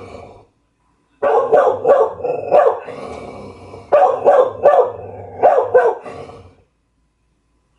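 A dog barking in two quick runs of repeated barks, then falling silent shortly before the end.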